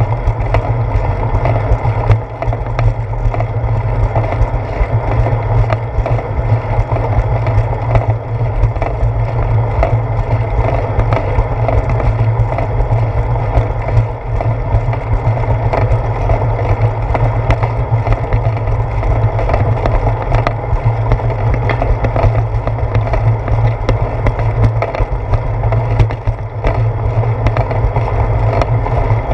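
Bicycle rolling over a concrete path, heard through a camera mounted on the seat post: a steady heavy rumble of road vibration with frequent small knocks and rattles.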